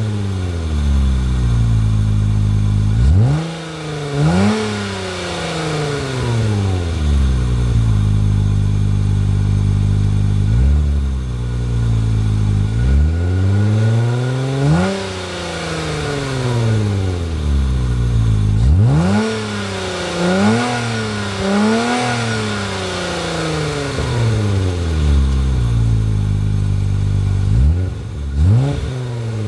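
2005 Hyundai Tiburon GT's 2.7-litre V6 through a Borla cat-back exhaust, revved repeatedly while standing, the engine not yet fully warm. There are single throttle blips that climb and fall back, a quick series of blips about two-thirds of the way through, and idle in between.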